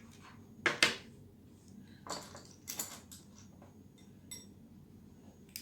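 A few sharp clicks and taps of small hard craft pieces, pearl beads and seashells, being handled and set down on a work surface while pearls are glued on. The loudest is a quick double knock about a second in.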